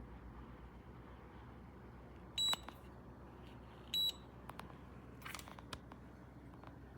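Two short, high electronic beeps about a second and a half apart, over a faint steady hum, with a few faint clicks.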